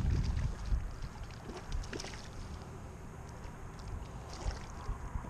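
Water lapping and splashing beside a kayak as a small speckled trout is reeled in and lifted from the surface, with a few short splashes and ticks. Wind rumbles on the microphone, heaviest in the first second.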